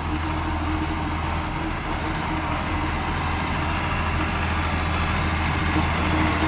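A tractor's diesel engine running steadily as it spreads chopped grass on the silage pile, growing slightly louder.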